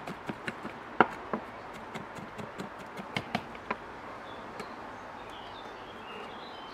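Chef's knife chopping garlic on a wooden cutting board: a run of sharp, uneven taps of the blade on the board, the loudest about a second in, dying away about halfway through. Faint high chirps follow near the end.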